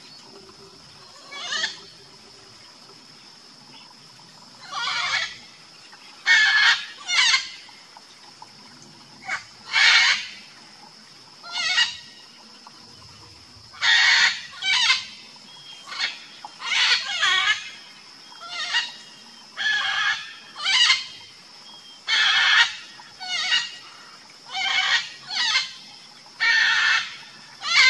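Red-and-green macaw giving loud, harsh squawks, about twenty calls, often in quick pairs. A steady high thin tone runs underneath.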